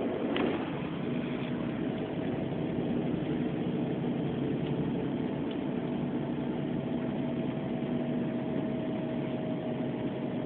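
Steady drone of a bus engine and road noise heard inside the cabin, with a short click about half a second in.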